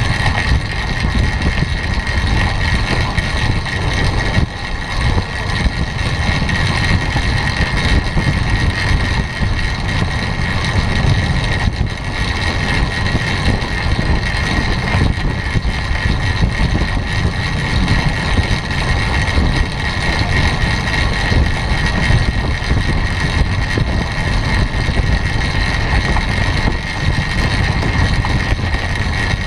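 Wind rushing over the microphone of a camera mounted on a track bike riding at speed, about 28 mph, mixed with the rolling noise of the tyres on the wooden velodrome boards. It is a steady rumble with a constant high hum over it.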